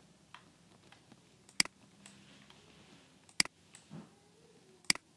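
Three sharp computer mouse clicks, spaced about one and a half to two seconds apart.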